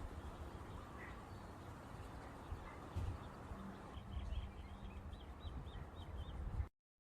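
Faint outdoor background rumble, with a quick run of high bird chirps, about five a second, for a couple of seconds past the middle.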